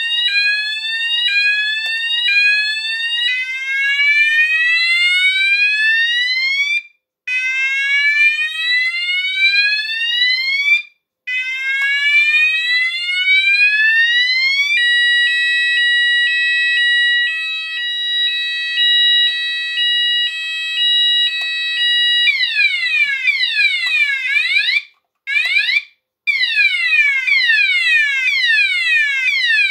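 Sonos DC multi-tone electronic fire alarm sounder stepping through its alarm tones. It starts with short repeated rising sweeps, then longer rising sweeps of about four seconds each. About halfway it changes to an alternating two-tone pattern, then to a fast up-and-down sweep, and it cuts out briefly between tones.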